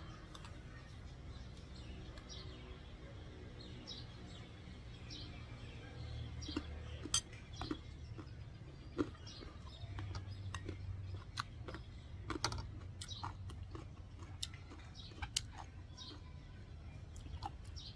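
Close-up chewing of crisp young green mango, with scattered crunches and a few spoon clicks on a china bowl. Faint bird chirps and a low steady hum sit underneath.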